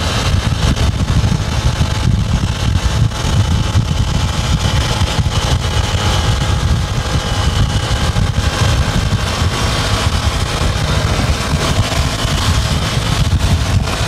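A motorcycle cruising at highway speed, heard from a vehicle pacing it, under steady road and wind noise.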